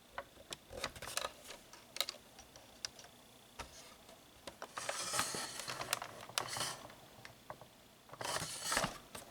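Scattered clicks and taps of hard objects being handled, with two longer stretches of rustling, about halfway through and near the end.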